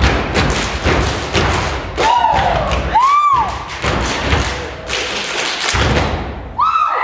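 Step team stepping: rapid, rhythmic stomps and slaps in a dense percussive pattern, with a couple of short rising-and-falling vocal calls about two and three seconds in and another just before the end.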